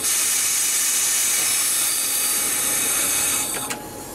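Loud, steady hiss of compressed air from the Alstom Coradia ETR425 electric train's pneumatic system, starting abruptly and cutting off after about three and a half seconds, followed by a couple of sharp clicks.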